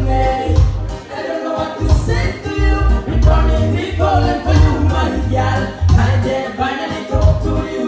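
Live band music for an island love song: a heavy, pulsing bass beat with singing over it.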